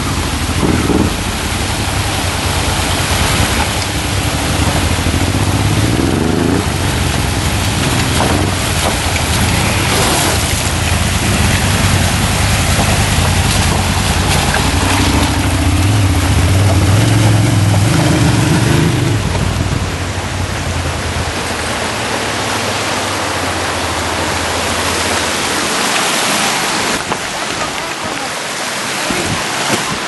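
Adventure motorcycle engine running under throttle in low gear as it rides through a shallow rocky stream, over a steady rush of water and wind noise. The engine is loudest a little past halfway, then fades out about two-thirds through, leaving only the rushing noise.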